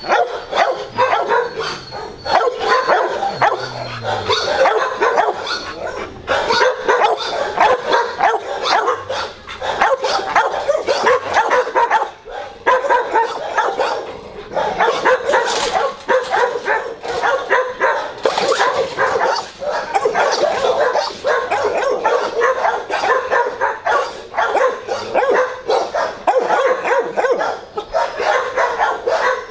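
Shelter dogs in their kennel runs barking and yipping, many at once, in a continuous overlapping din with no let-up.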